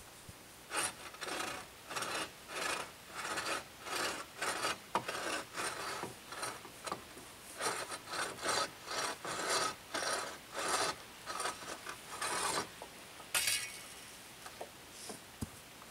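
Bow saw cutting through a wooden pole overhead in steady back-and-forth strokes, about two a second, then a single sharp crack near the end.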